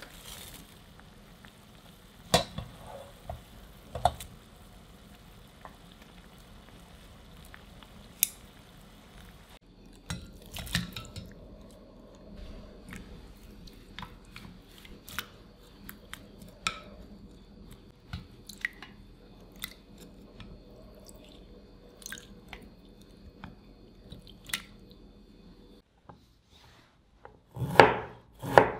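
Kitchen sounds in three parts: boiling water in a pan with wooden chopsticks clicking against the pan and broccoli, sharpest twice in the first few seconds; then chopsticks turning broccoli in a bowl of cold water with light clicks and small water sounds; then, near the end, a knife chopping broccoli on a wooden cutting board in a few quick strokes, the loudest part.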